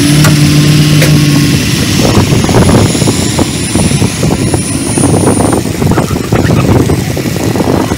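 Pickup truck engine droning steadily as it pulls a boat on its trailer up a launch ramp, followed by loud rushing and splashing as water streams off the hull and trailer wheels.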